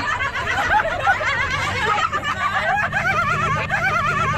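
Several young women's voices at once, laughing and calling out in high, warbling tones, over a steady low hum.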